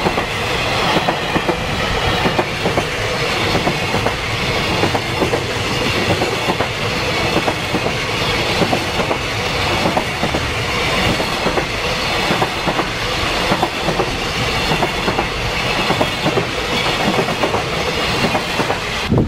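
A freight train's container wagons rolling past close by: a steady rumble of wheels with a rapid, continuous clickety-clack as they cross the rail joints, and a faint high ringing from the wheels on the rails.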